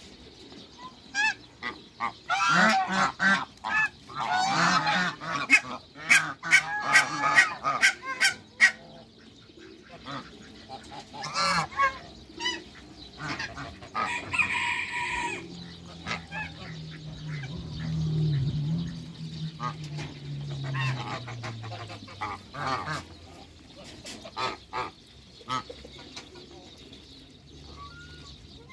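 A flock of African geese honking, with a dense run of loud calls in the first third and scattered calls after it. A low hum swells and fades midway.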